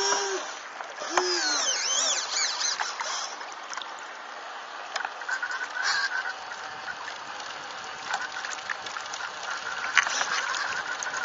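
Water rushing and splashing past the hulls and foil of a Mini40 radio-controlled hydrofoil multihull, picked up by a camera on board, with scattered small ticks and knocks. A short whining tone sounds right at the start and again about a second in, and high chirping glides follow around two seconds in.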